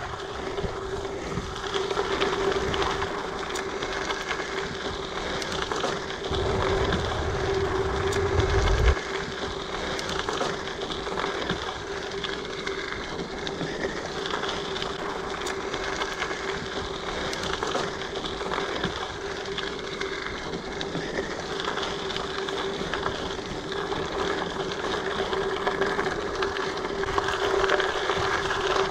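Giant Fathom mountain bike ridden along a dirt trail: steady rolling and drivetrain noise with a constant hum and occasional small knocks from bumps. Wind buffets the microphone from about six to nine seconds in.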